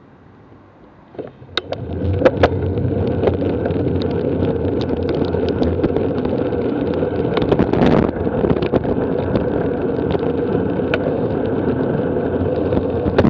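Bicycle setting off from standstill and riding along a road, heard from a handlebar-mounted camera: after about a second of faint traffic hum, a steady rush of wind and tyre noise comes in and holds, with scattered sharp clicks and rattles from the handlebars over the road surface.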